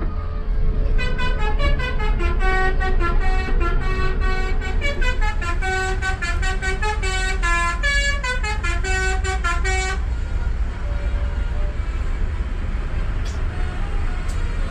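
Bus telolet horn (Basuri musical air horn) playing a quick multi-note tune for about nine seconds, then stopping abruptly, over a steady low rumble.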